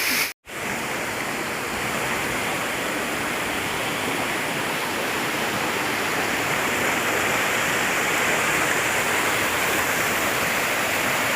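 Waterfall rushing steadily, cut off for a moment about half a second in.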